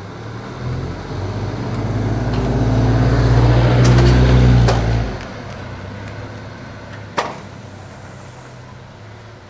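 A mail truck's engine passing close by, growing louder for about four seconds and then falling away sharply about five seconds in. There are a few sharp clicks, the loudest about seven seconds in.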